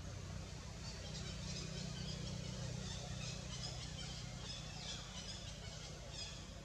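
Small birds chirping in the surrounding trees: many short, high chirps in irregular runs, starting about a second in and fading near the end, over a steady low hum.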